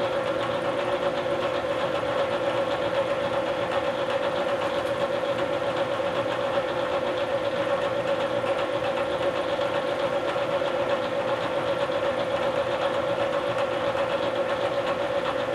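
Bridgeport vertical milling machine's spindle running with an end mill cutting a pocket in an aluminum block as the table feeds across. A steady hum with one strong, even tone that holds throughout.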